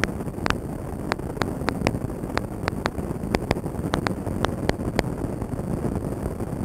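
Recorded music track made of a dense, low rumbling noise with sharp clicks scattered irregularly through it, about two or three a second.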